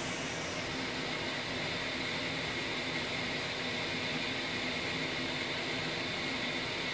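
Steady static hiss from a Kenwood TM-281 VHF mobile radio's speaker.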